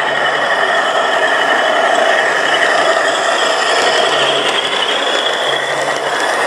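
G-scale model freight train running close by on curved track: a steady metallic rattle and whir from its wheels on the rails and the locomotive's geared drive. It grows a little louder as the locomotive passes, then eases slightly as the cars follow.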